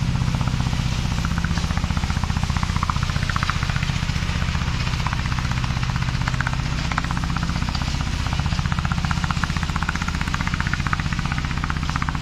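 Rubber-tracked brush mower running steadily at working speed, its engine giving a fast, even pulsing beat.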